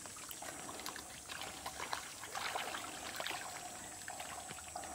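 Water splashing and trickling in a run of small, irregular splashes and clicks, as hands work through shallow water.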